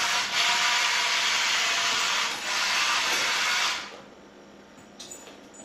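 WPL 1/16 scale RC crawler truck's small electric drive motor and gears running as the truck is driven across a tabletop, with two brief let-offs of the throttle, then stopping about four seconds in.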